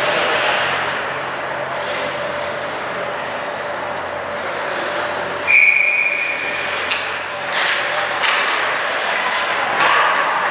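Steady hiss of ice arena noise. About five and a half seconds in, a referee's whistle blows one steady blast lasting about a second and a half. A few sharp knocks follow.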